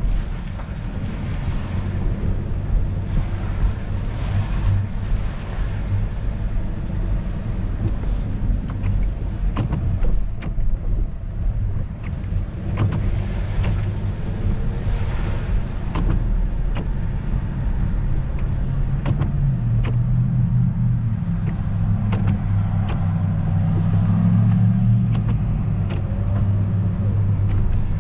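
A car driving on wet streets, heard from inside the cabin: a steady low engine and road rumble with tyre hiss, and scattered light ticks. The rumble grows a little stronger in the last third.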